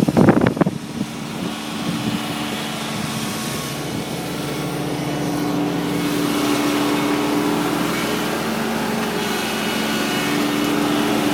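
Kubota tractor's engine running steadily, its hum growing a little louder toward the middle.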